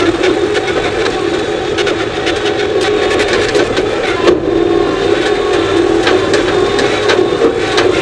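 Skid steer loader's engine running steadily as the machine drives, with frequent clanks and rattles from the loader and one sharper knock about four seconds in.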